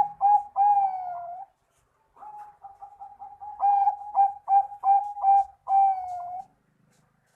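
Zebra dove (Bangkok-type perkutut) singing its cooing song twice: a quick run of short clipped coos, each run ending in one longer note that falls in pitch.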